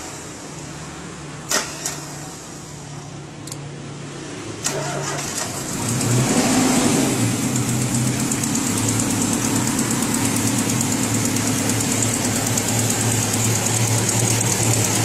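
Kia Sportage 2.0-litre engine idling with the hood open, run to bleed air from the cooling system, with a couple of sharp clicks in the first few seconds. About five seconds in, the engine sound gets louder and fuller and then holds steady.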